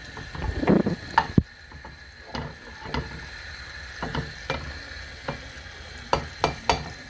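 Butter sizzling in a cooking pot over a gas flame, with a utensil knocking and scraping against the pot. A cluster of louder knocks comes about a second in, and several more come near the end.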